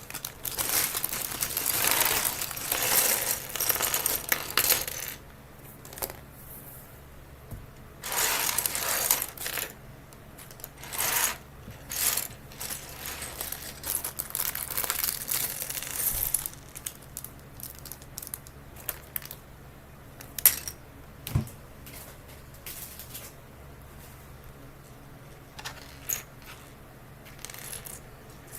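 Small plastic LEGO pieces clattering and rattling in several bursts as a freshly opened parts bag is tipped out, then only scattered small clicks of pieces being handled.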